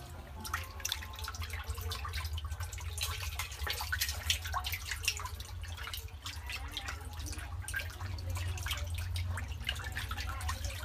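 Many fish thrashing in shallow water in a small earthen hole, making a continuous irregular run of small splashes and drips, over a steady low rumble.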